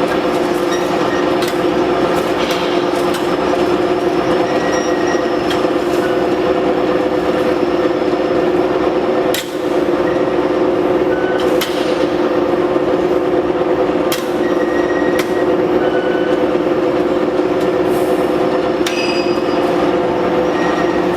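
Steel fan-guard straightening machine running: a steady mechanical hum with a strong pitched drone, broken by sharp metallic clicks and knocks every few seconds and a few brief squeaks.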